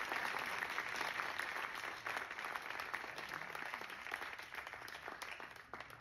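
Audience applause: many hands clapping at once, loudest at first and slowly dying down toward the end.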